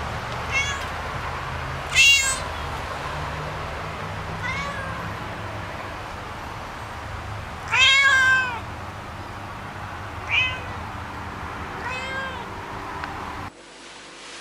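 Domestic cat meowing about six times, a few seconds apart; the loudest is a long meow about eight seconds in. A steady low hum and hiss runs under the meows and cuts off sharply near the end.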